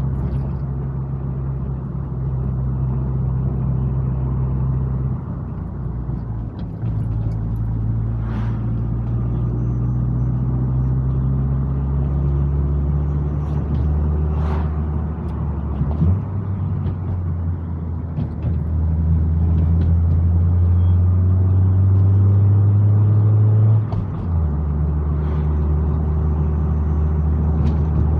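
Car engine and road noise while driving up a grade, a steady low drone whose pitch steps up or down abruptly several times, as when the engine speed changes between gears.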